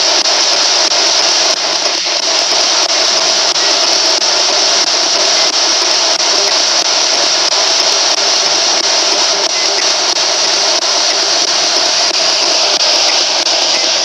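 Handheld spirit box, a radio scanner sweeping through stations, giving out a loud, steady hiss of static. Underground there is no broadcast coming in, so only white noise is heard.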